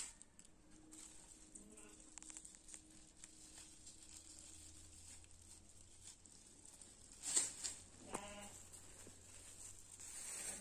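Quiet background with faint rustling of a thin plastic bag being handled over a woven basket of snails. There is a sharp click about seven seconds in, and a short wavering call just after it.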